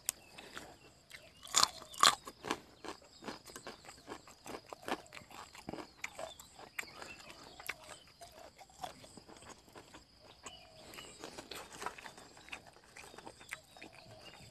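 A person chewing a mouthful of fresh raw vegetables and herbs with minced fish laab: crunching and wet mouth sounds with many small clicks, and two loud crunchy bites about two seconds in.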